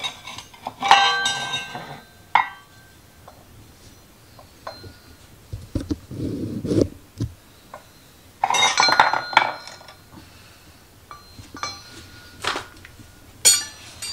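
Metal hand tools clinking and rattling against each other and against metal, in several separate clusters of sharp ringing clinks. About six seconds in there is a short, dull low rumble.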